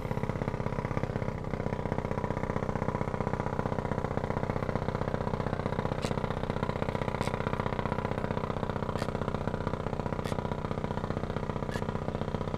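A small engine running steadily at an unchanging speed, with a few sharp clicks over it in the second half.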